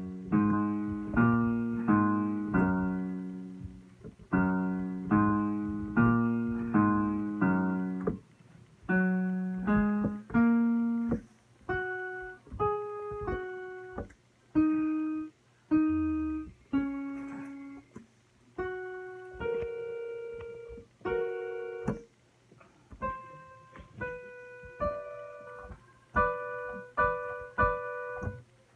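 Piano music: chords struck about twice a second for the first eight seconds, then a sparser melody of single notes and small chords.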